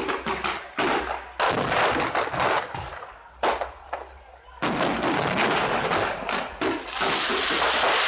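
Fireworks display: a string of sharp aerial shell bangs, each trailing off into crackle, giving way near the end to dense continuous crackling.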